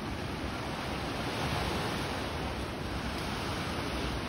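Steady wash of ocean surf breaking in a rocky cove, swelling slightly about a second in.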